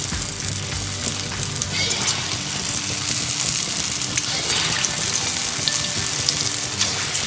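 Moong and urad dal vada batter sizzling and crackling as it deep-fries in hot oil in a kadhai, with fresh dollops being dropped in.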